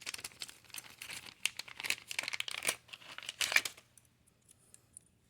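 Crinkling and rustling of plastic packaging being handled, as the razor blade is taken out of the tire plug kit. It stops about four seconds in, leaving a few faint ticks.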